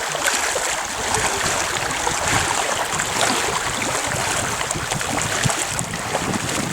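Water lapping and splashing: a steady watery hiss flecked with many small splashes and trickles.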